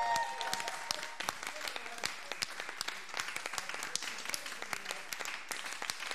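Audience applauding, dense clapping throughout; the last held note of the music dies away about a second in.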